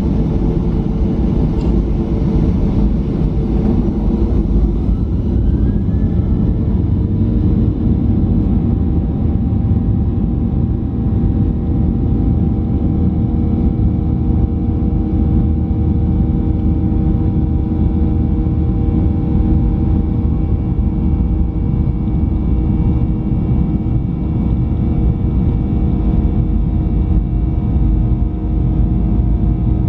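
Boeing 737-900's CFM56 jet engines heard from inside the passenger cabin: a loud, steady rumble with steady engine tones over it, and a whine that rises about five seconds in and then holds.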